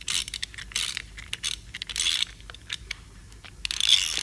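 Ratchet wrench clicking in short, irregular bursts as it runs the indicator bolt down into the top of a plug valve's plug.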